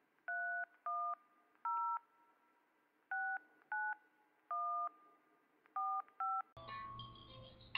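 Touch-tone phone keypad dialing a number: eight short two-tone beeps, in uneven groups of three, three and two. Faint music starts near the end.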